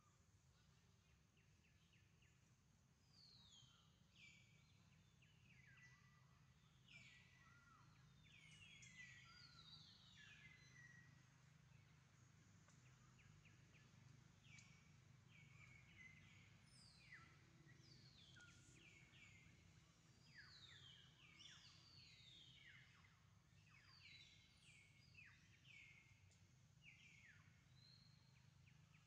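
Faint chorus of small birds chirping, with many quick downward-sliding notes overlapping, starting a few seconds in, over a low steady hum.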